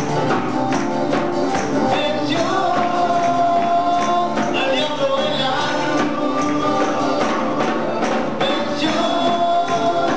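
Live worship band music with singing and tambourines jingling in rhythm.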